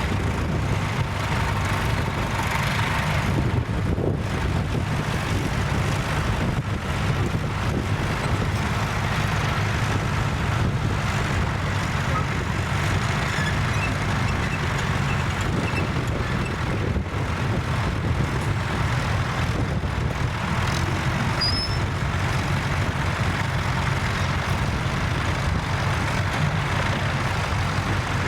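Tractor engine running steadily at a constant pitch.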